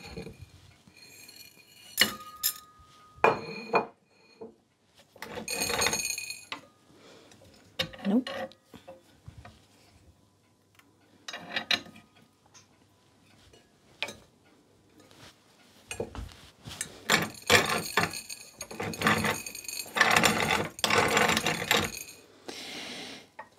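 Cast iron hand-cranked grain mill being adjusted and turned in short goes, giving metal clinks, knocks and scrapes. In the last few seconds it grinds wheat berries between its plates with a denser gritty rasping, while the tension between the plates is being set for how fine the flour comes out.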